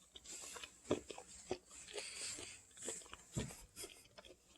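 A person chewing food: faint, irregular small clicks and crunches.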